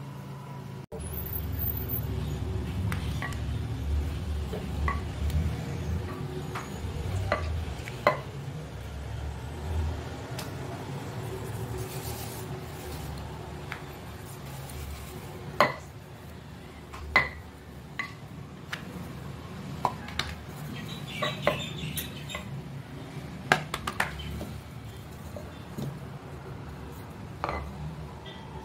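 Wooden rolling pin rolling out ragi roti dough on a bare countertop: a low, uneven rolling rumble, with scattered sharp clicks and knocks as the pin and hands move on the counter.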